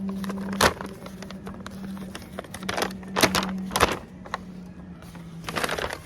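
Handling noises from packaged items being picked up and moved: a few sharp knocks and rustles, the loudest about three and a half seconds in, over a steady low hum.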